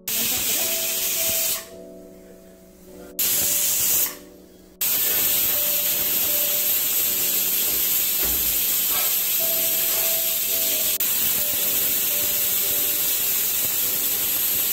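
Pressure cooker whistling: steam hissing out of the weighted whistle valve of an aluminium Prestige Deluxe pressure cooker as built-up pressure is released. Three spells of hiss, two short ones and then a long one of about ten seconds.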